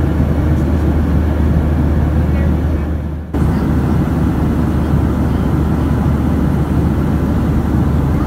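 Steady cabin noise of a Boeing 737-700 in cruise, heard from inside at a window seat: a deep, even rush of airflow with a constant low engine hum. It dips briefly a little over three seconds in, where the recording cuts.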